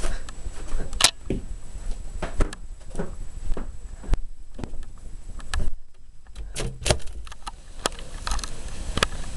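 Handling noise from a handheld camcorder being moved around: irregular knocks and clicks, one to three a second, over a low rumble.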